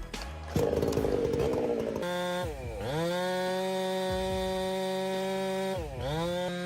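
Chainsaw running at high revs, its engine note dropping sharply and climbing back twice, about two and a half and six seconds in. A few knocks and a rougher, noisier stretch come in the first two seconds.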